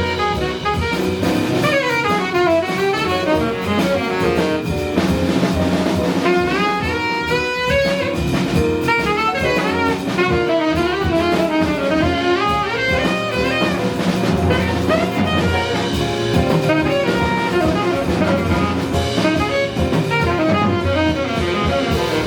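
Jazz combo playing live: a saxophone plays fast runs of notes that climb and fall over drums, bass and piano.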